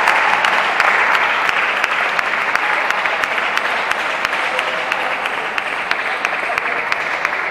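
Spectators applauding in a large hall between table tennis points: dense clapping that slowly dies away.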